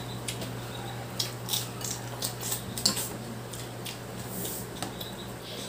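Irregular small sharp clicks and crackles from eating a seafood boil: crab and shrimp shells being handled and eaten. A steady low hum runs underneath.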